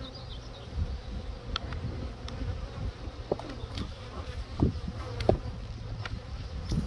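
Honeybee colony buzzing over an open hive, a steady hum, with a few short knocks scattered through.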